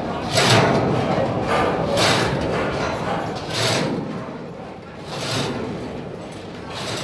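Manual chain hoist being hauled, its chain rattling through the block in regular pulls about every one and a half seconds.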